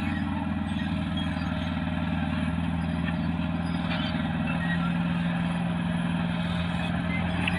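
Caterpillar D6R bulldozer's diesel engine running with a steady low drone that grows slightly louder about halfway through.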